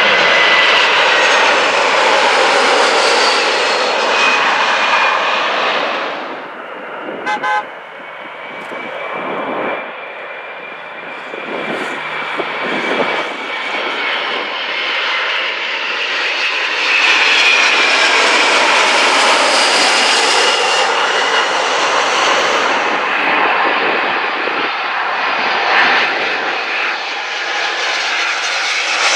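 Jet engines of McDonnell Douglas MD-11 freighters passing low on landing approach: loud jet noise with a high steady whine. It fades and breaks off about six seconds in, builds again to a second loud pass in the middle, and a third jet is heard near the end.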